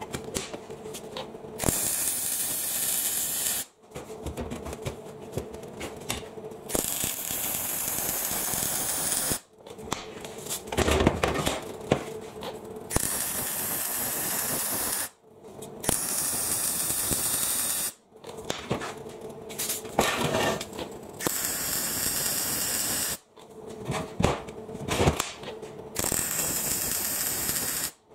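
MIG welding on steel box section: the crackling hiss of the arc comes in short runs of about two seconds, six times, with clanks and knocks of steel and clamps between them.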